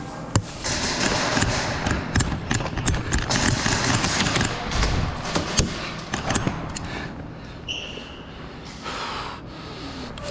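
An airsoft player's clothing and gear rustling with footsteps as they move, broken by many scattered sharp clicks and knocks, the strongest about half a second in.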